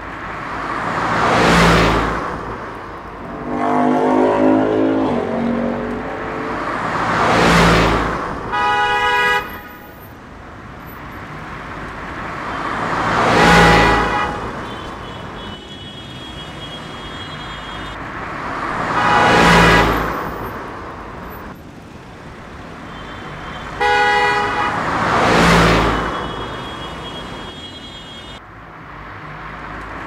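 Road traffic: cars passing one after another, each swelling up and fading about every six seconds. A car horn sounds briefly twice, about nine seconds in and again near the 24-second mark.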